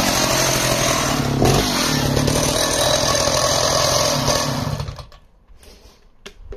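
Stihl 045 AV 75 cc two-stroke chainsaw idling steadily, then switched off about four and a half seconds in, the engine running down to a stop.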